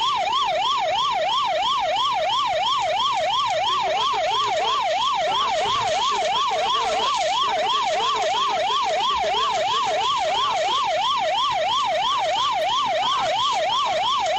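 Police car siren in fast yelp mode, its pitch sweeping up and down about three times a second, steady and unbroken.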